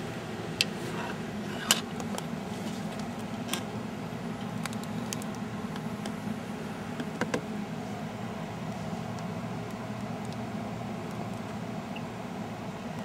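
Steady low machine hum with a handful of sharp clicks, the two loudest within the first two seconds and a close pair about seven seconds in.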